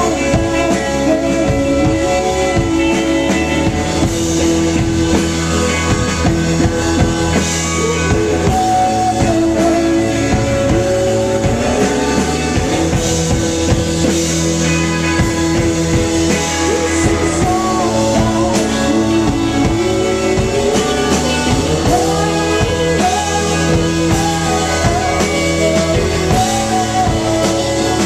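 Live indie band playing: a woman singing over held organ chords from a Hammond XK-1, with electric guitar and a drum kit keeping a steady beat.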